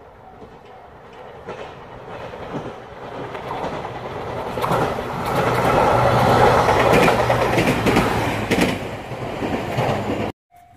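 JR Kyushu 817 series electric train approaching and passing close by. It grows louder as it nears, with a rapid clatter of wheels over rail joints at its loudest just past the middle. The sound cuts off abruptly near the end.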